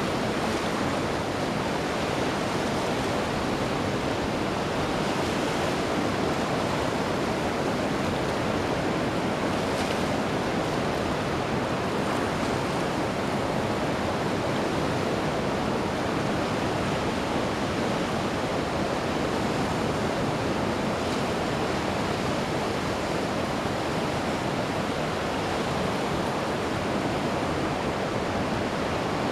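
Ocean surf washing onto a beach, a steady, unbroken rush of noise.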